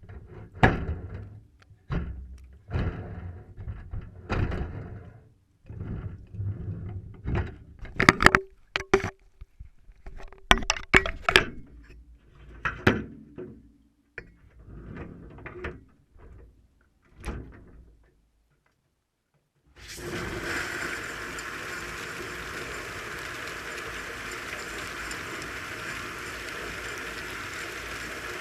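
Knocks and clatter of a dishwasher's door and racks being moved. After a short silence, the dishwasher's wash cycle starts with a steady rush of water spraying inside.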